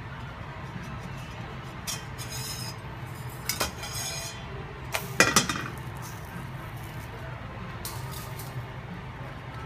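Metal turner scraping and clinking against an iron frying pan as a pancake is flipped, with the loudest metal clank about five seconds in. A steady low hum runs underneath.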